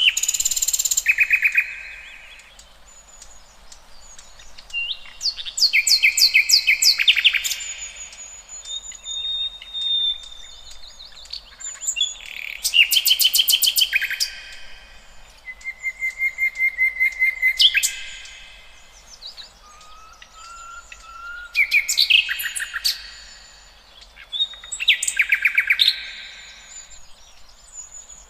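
Songbirds singing in the wild: loud phrases of rapid, repeated high notes and trills that come every few seconds, with softer chirps between them.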